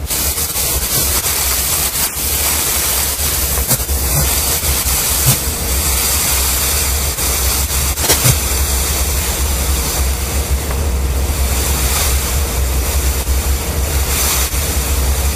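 A butane-fuelled mini gas thermal fogger running, a loud steady rushing hiss as it jets a plume of fog. The sound comes on suddenly at the outset.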